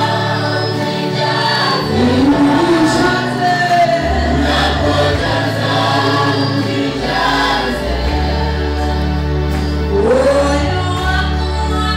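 Gospel music: a choir singing over sustained bass notes that change every second or two.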